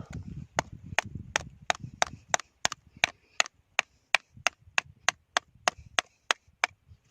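A hard tool striking in a steady rhythm, about three sharp knocks a second, chipping a wild oyster off the rock.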